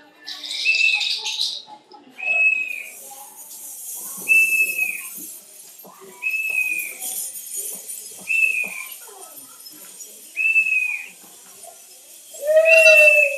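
A short, high whistled note, slightly arched in pitch, repeated about every two seconds over a steady hiss. Near the end a louder, lower call with overtones sounds.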